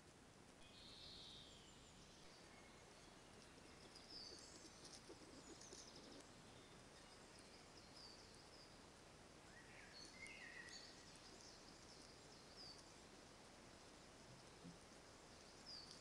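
Faint birdsong: scattered short, high chirps and whistled notes from small birds, over a steady hiss.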